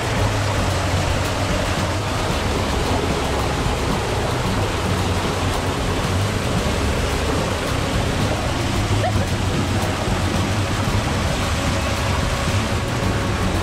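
Steady rush of a cave stream pouring and splashing over boulders in a small cascade.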